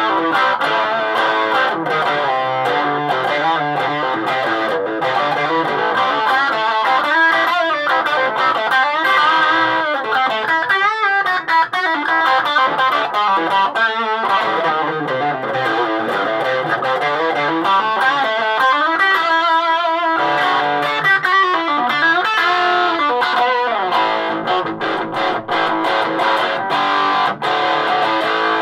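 Electric guitar played loud through a Donner 5 W mini amplifier: fast picked lead lines with string bends and vibrato, with no break in the playing.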